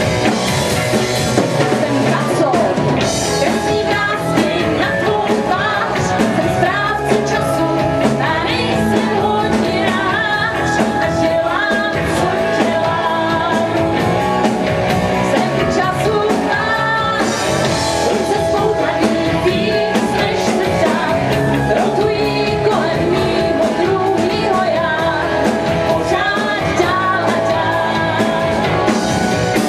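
Live rock band playing a song: a woman singing lead over electric guitar, bass guitar and drum kit, loud and continuous.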